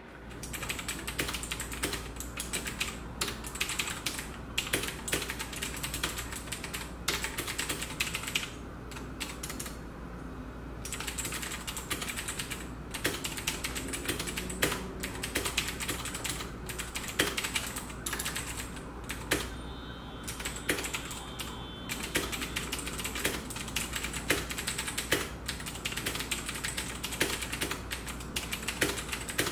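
Fast, continuous typing on a Royal Kludge RK837 mechanical keyboard: a dense clatter of key clicks, with short lulls about nine and twenty seconds in.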